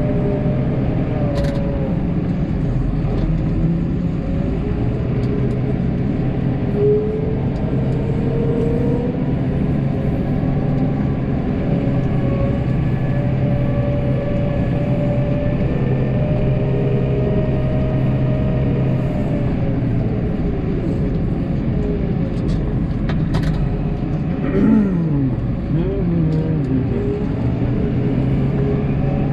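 Snowplow vehicle's engine running steadily. About 25 seconds in, the engine pitch drops and then climbs again.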